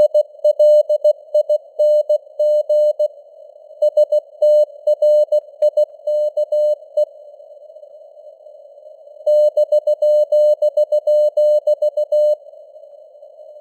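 Morse code (CW) sent at 16 words per minute: a single steady tone keyed on and off in dots and dashes, over the hiss of simulated radio noise. The keying stops for about two seconds in the middle and again near the end, leaving only the hiss.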